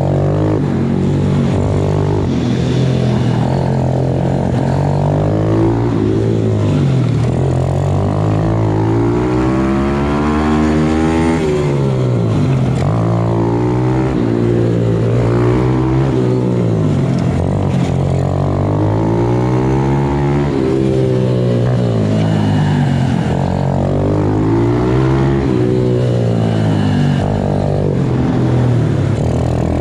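MRF 120 pit bike's small single-cylinder engine revving up and down lap after lap. Its pitch climbs and drops about every two to three seconds as the rider accelerates and backs off for the turns.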